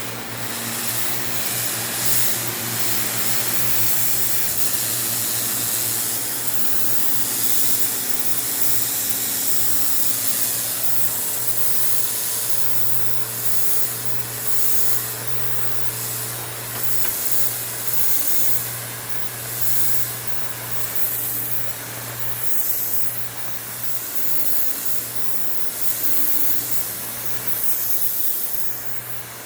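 Pressure washer fitted with a rotary (turbo) nozzle blasting a soaped shop floor: a loud steady hiss of the spray over a steady low hum from the machine. In the second half the hiss swells and fades every second or two as the jet sweeps across the floor.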